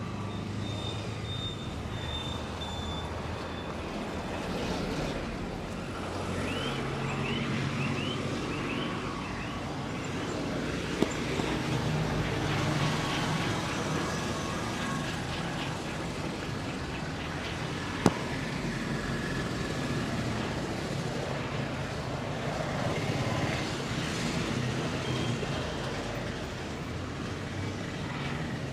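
Steady street traffic noise, with two sharp clicks or snaps about seven seconds apart.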